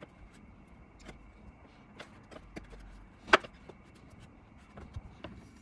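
Thin wooden boards handled and pressed together by hand: scattered light taps and clicks of wood on wood, with one sharp knock a little past halfway.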